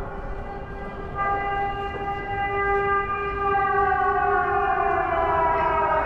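Civil defence air raid siren wailing in several steady tones. A louder, higher tone joins about a second in and slowly falls in pitch over the last few seconds.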